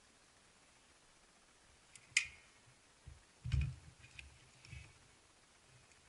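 Hand-squeezed caulk gun pressing out thick urethane: a sharp click about two seconds in, a dull knock about a second and a half later, then a few faint ticks.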